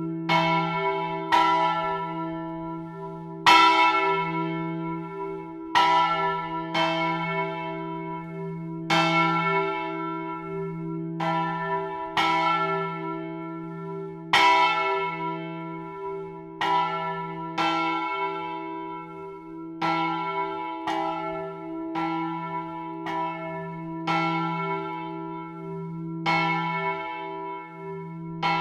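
A large bronze church bell being rung swinging (a distesa), its clapper striking about once every one to two seconds. Each stroke rings on and fades over a steady low hum.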